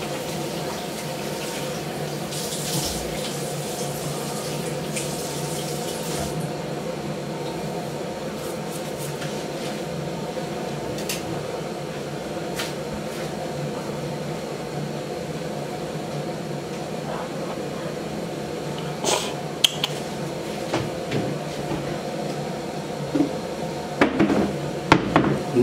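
Bathroom tap running steadily into a sink, with a brighter hiss from about three to six seconds in and a few knocks and clatters of handling near the end.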